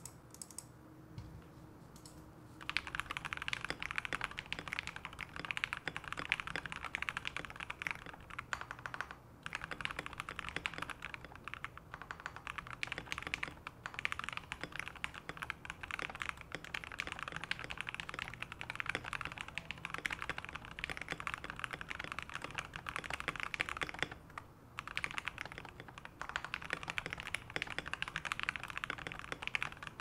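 Fast continuous typing on a KBD67 Lite mechanical keyboard with lavender switches lubed with Krytox 205g0 and fitted with switch films, and PBT keycaps. The keystrokes start about two and a half seconds in and stop briefly twice.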